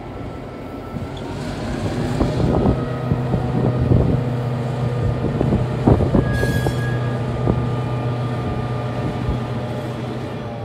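DSB MY-class diesel-electric locomotive's GM 567-series two-stroke V16 engine running with a steady low drone as it rolls past slowly. The drone swells about two seconds in and fades toward the end, with a few sharp clanks along the way.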